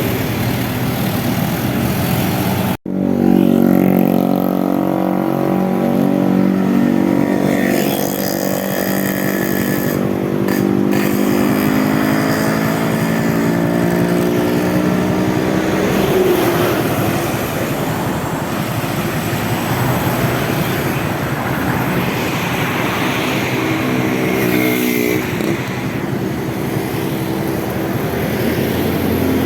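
Road traffic passing, with bus and motorcycle engines running. After a brief dropout about three seconds in, one loud engine dominates and its pitch sinks slowly over the next dozen seconds.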